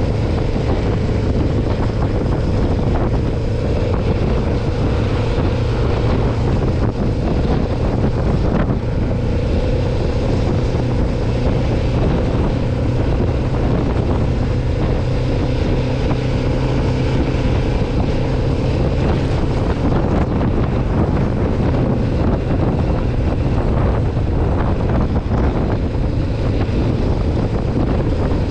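Kawasaki Ninja 500R's parallel-twin engine running at steady revs under way, with wind rushing over the microphone.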